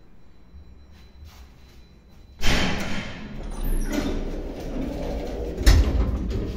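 Elevator's automatic sliding doors opening: a sudden clunk about two and a half seconds in, then the doors sliding and rattling, with a heavy thud near the end.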